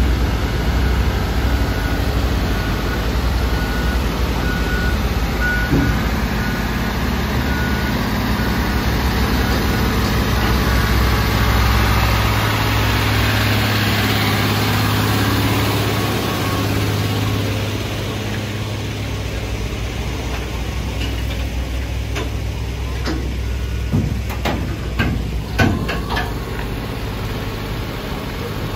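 A heavy MAN tractor unit's diesel engine running low and steady while hauling a railway carriage on a lowboy trailer, with a reversing alarm beeping at an even pace for the first ten seconds or so. The engine sound drops back after about eighteen seconds, and a few short sharp sounds come near the end.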